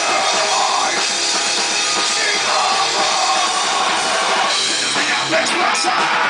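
Loud rock music played by a full band with a drum kit, dense and continuous.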